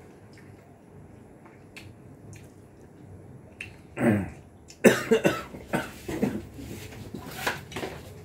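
A person coughing: one loud cough or throat-clearing about four seconds in, then a run of hard coughs in quick succession. Faint clicks of hands and utensils on plates come before it.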